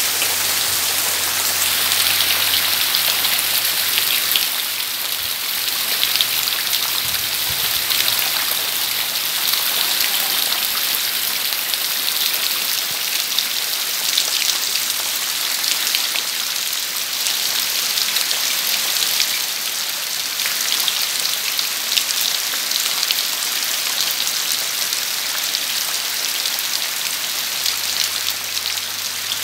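Steady rain falling on trees and bare ground: an even, dense hiss with many individual drops ticking and splashing.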